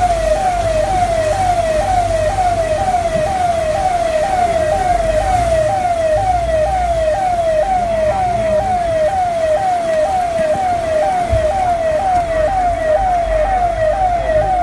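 Electronic siren wailing in a fast, evenly repeating sweep, a bit over two cycles a second, over a low rumble.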